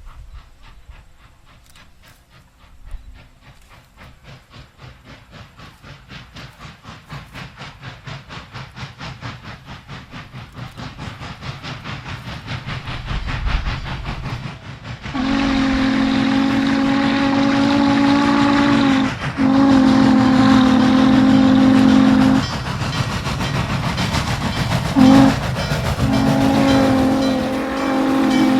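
Norfolk and Western J Class 4-8-4 No. 611 steam locomotive working hard on departure, its exhaust chuffs quickening and growing louder as it approaches. From about halfway through, its steam whistle blows a long, a long, a short and a long blast, the grade-crossing signal, over the running exhaust.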